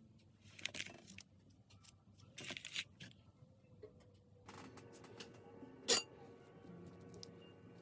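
Small clinks and handling noises of glassware and dishes, with one sharp clink about six seconds in.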